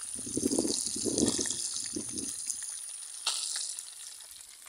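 Piranha and traíra fish deep-frying in a pan of hot oil, a steady sizzle and hiss. A low muffled sound comes in over the first two seconds, and a sudden sharper burst of hissing comes about three seconds in.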